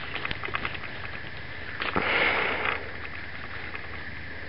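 A raccoon at a watermelon: a few faint chewing clicks, then a loud breathy sniff-like rush about two seconds in that lasts about a second.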